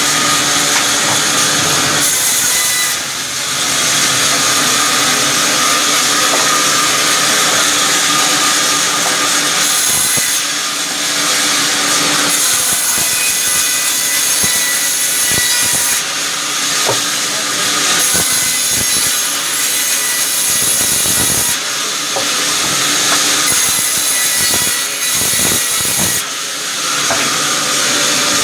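Sawmill saw cutting through timber: a loud, steady, high-pitched cutting noise whose pitch and texture change every few seconds as the blade works through the wood.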